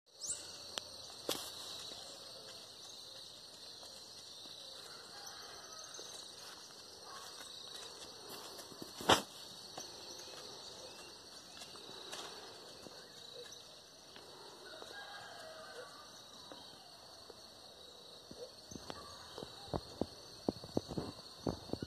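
Steady high-pitched chirring of insects in rural ambience, with a single sharp knock about nine seconds in and a quick run of sharp knocks near the end.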